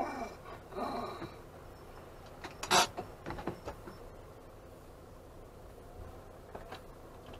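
A dog giving a few short, separate barks, the loudest about three seconds in, with fainter ones around it.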